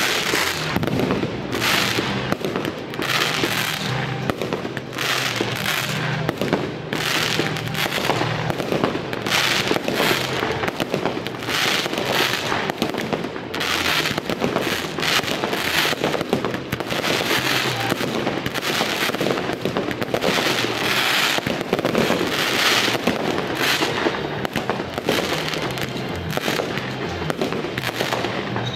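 Aerial fireworks bursting in a dense, unbroken barrage, a loud bang about every second over continuous crackling, picked up by a phone's microphone.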